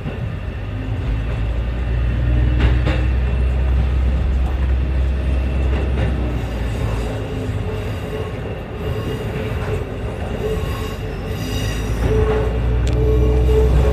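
Diesel railcar running along the line, heard from inside the car: a steady low drone of the engine and rolling wheels, a sharp click from the rails about three seconds in, and thin squealing tones from the wheels near the end as the car rounds a curve.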